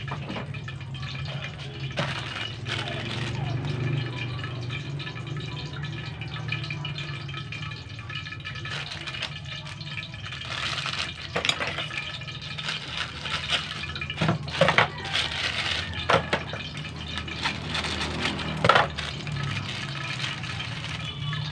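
Plastic instant-noodle wrapper and foil seasoning sachets crinkling and tearing as they are opened, a burst of sharp crackles and rustles from about halfway through to near the end, over a steady low hum from the gas burner.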